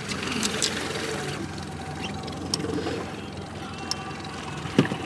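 Boat outboard motor running steadily at trolling speed, under wind and water noise, with a sharp knock just before the end.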